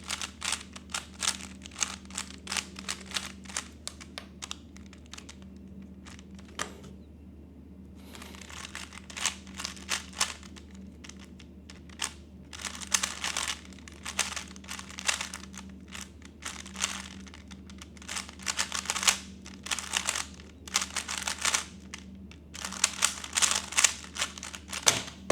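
3x3 Rubik's Cube being turned fast in a speedsolve: rapid clicking and clattering of the plastic layers, in quick flurries with short pauses, the longest about a quarter of the way through.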